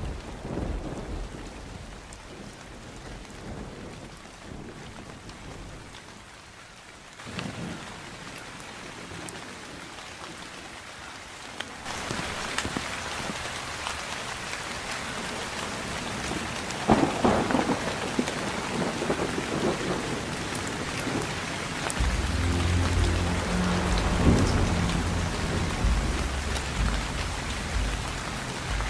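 Rainfall that becomes much heavier about twelve seconds in, with a loud rumble of thunder a few seconds later. Background music with low sustained notes comes in about two-thirds of the way through, over the rain.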